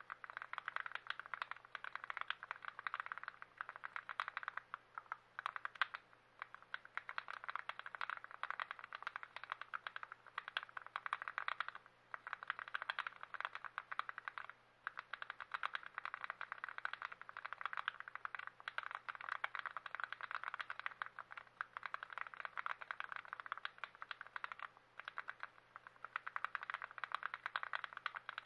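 Rapid, continuous clicking and rattling of small plastic mechanical-keyboard parts, with a few short pauses.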